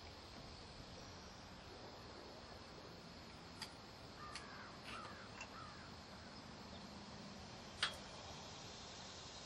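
Quiet outdoor background with a few sharp clicks and knocks from hands working at the top of a foundry furnace, the loudest about eight seconds in. A bird calls a few times around the middle.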